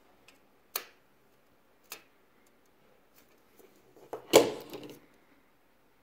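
Handling clicks from a Stanley Lever Lock tape measure's steel blade and sliding end hook: two single sharp clicks, then a louder cluster of clattering clicks a little after four seconds in.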